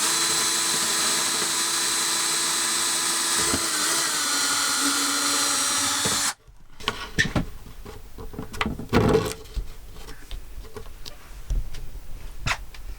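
Power drill running steadily, its pitch sagging slightly under load partway through, then stopping abruptly about six seconds in. This fits drilling holes through the plywood cabinet doors for the pull-tab bolts. Scattered clicks and knocks of handling follow.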